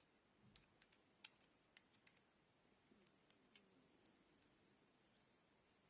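Faint, irregular small metal clicks of a screwdriver tip working a terminal screw on a ceramic lamp holder, a quick cluster in the first two seconds, a few more about three seconds in, and a last one near the end.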